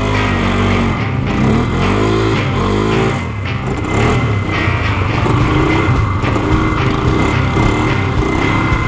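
Polaris ATV engine running under throttle on a rough trail, its revs rising and falling repeatedly.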